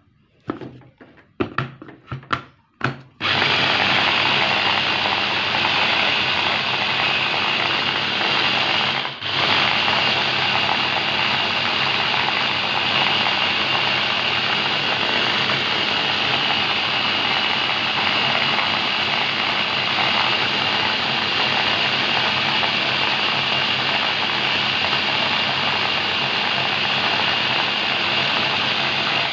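A small GSF electric food chopper fitted together with a few plastic clicks and knocks, then its motor running steadily with a whine as it grinds shallots, garlic, chilies and candlenuts into spice paste. It stops briefly about nine seconds in and starts again at once.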